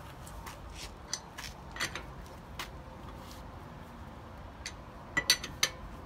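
Light metal clicks and clinks of a lug wrench being fitted onto and worked on a car wheel's lug nuts to loosen them. A quick run of sharper, louder clinks comes about five seconds in.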